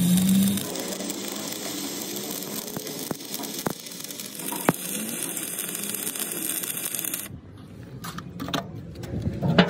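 Stick (arc) welding on a steel excavator bucket: the arc gives a steady spattery crackle and sizzle. It breaks off about seven seconds in, and a few sharp knocks follow near the end.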